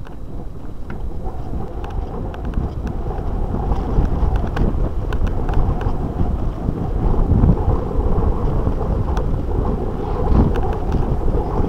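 Wind rushing over the microphone of a camera riding along on a mountain bike on a rough dirt track, a steady low rumble, with scattered light rattles and knocks as the bike goes over bumps.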